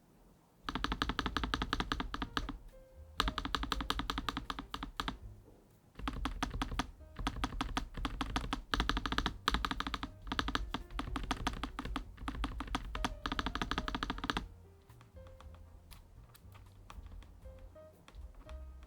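Fast typing on a Lofree Flow Lite low-profile mechanical keyboard with POM switches: a dense run of keystrokes in three stretches with short pauses between them. The typing stops about fourteen seconds in, leaving soft background music.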